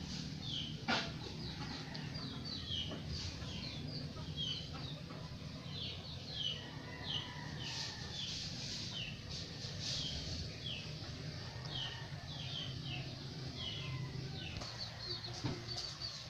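Birds chirping over and over: short, high, falling chirps, one after another, over a low steady rumble.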